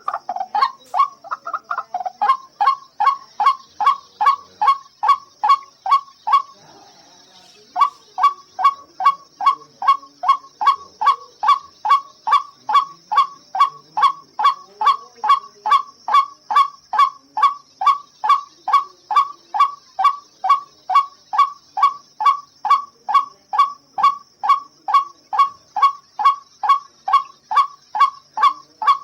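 White-breasted waterhen (ruak-ruak) calling: a long, monotonous run of identical short notes, about two and a half a second. The calls break off for about a second near a quarter of the way through, then resume at the same even pace.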